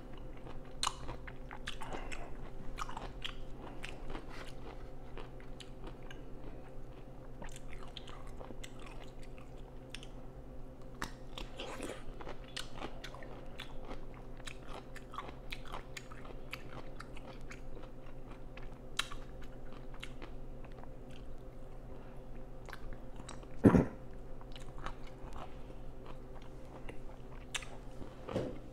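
Close-miked crunching bites and wet chewing of pickles, with many small crackling clicks, over a steady low hum. One sharp knock about 24 seconds in stands out as the loudest sound.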